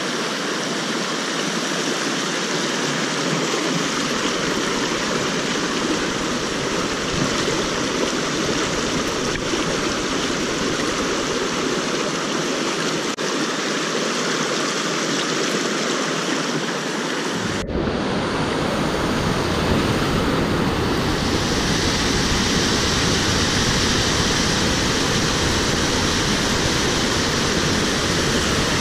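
Rushing water of a rocky mountain stream tumbling over boulders and small cascades, a steady rush. About two-thirds of the way through it shifts abruptly to a fuller, deeper rush.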